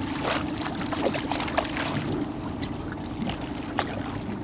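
Boat's outboard motor running steadily at trolling speed, with short splashes of water as a hooked chinook salmon thrashes at the surface beside the boat.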